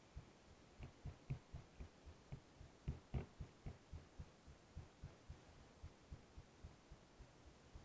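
Muffled, regular low thumps from a motorcycle riding slowly along a wet, rough dirt track, about four a second, with a few louder ones in the first half.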